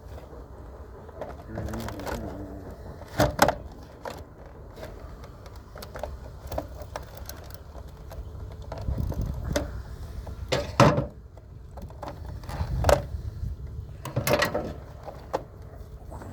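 Plastic housing and parts of an iRobot robot vacuum knocking and clicking as it is taken apart, a few sharp knocks among lighter handling noise, over a steady low rumble of wind on the microphone.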